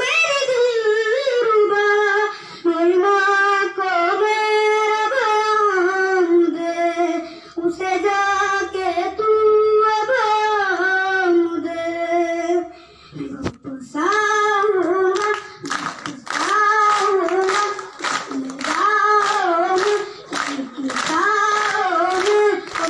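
A boy singing a melodic song solo, with long held notes that bend in pitch and a short breath break about halfway through. In the second half, listeners clap along in a steady beat under his voice.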